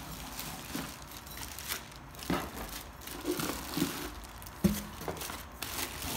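Plastic wrap crinkling and rustling as plastic-wrapped glass lids and a nonstick pot are handled in a cardboard packing box. There is a dull thump about four and a half seconds in.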